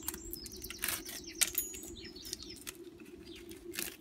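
Fine copper winding wire being pulled and torn off a coil by gloved hands: a rapid crinkly rustling with scattered small clicks, sharpest about a second and a half in.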